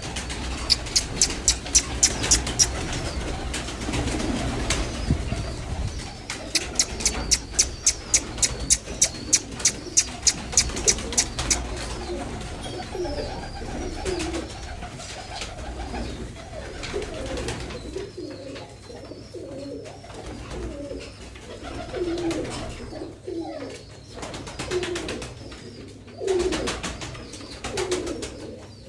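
A flock of domestic pigeons cooing repeatedly. Two runs of sharp, evenly spaced clicks, about four or five a second, stand out: one in the first few seconds and another from about six to eleven seconds in.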